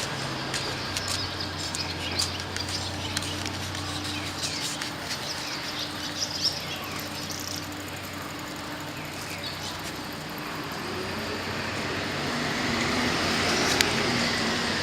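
Small birds chirping over street ambience, with a vehicle's low steady hum that fades after about four seconds and a broad noise that grows louder near the end.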